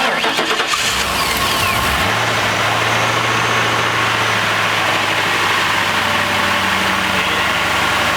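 Ford Crown Victoria P71's 4.6-litre V8 cranking on the starter and catching about two seconds in, then idling steadily. It is being started after the fuel tank was refitted and the fuel pump primed.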